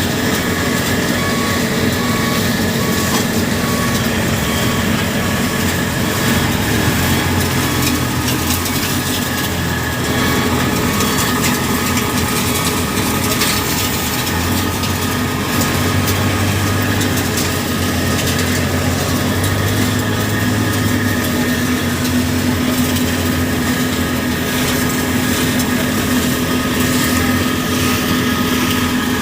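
Heavy diesel machinery engine running steadily under load, with a constant low hum and mechanical noise.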